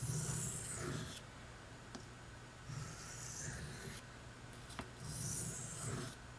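Pocket-knife blade drawn slowly along a soft Arkansas oilstone: three separate hissing strokes of about a second each, refining the edge.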